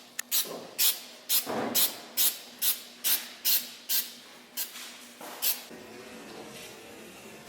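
Aerosol spray-paint can giving quick short sprays, about two to three hisses a second. They stop after about five and a half seconds, leaving a fainter steady hiss.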